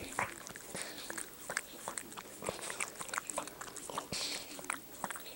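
A Yorkshire Terrier licking and chewing close to the microphone: a rapid, irregular run of small wet clicks and smacks, with a short breathy sniff about four seconds in.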